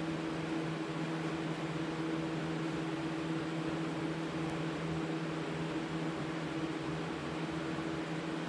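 Steady hum of a small electric motor: two low held tones over an even hiss, unchanging throughout.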